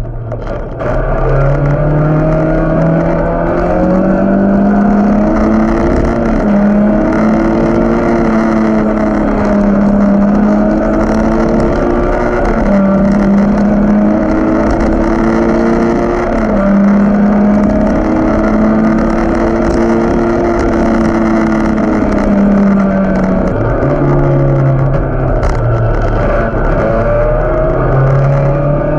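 1600cc race car's engine heard from inside the cabin, running hard at high revs. Its pitch climbs and drops back several times as the revs rise and fall, with a sharp climb about a second in and dips near the end.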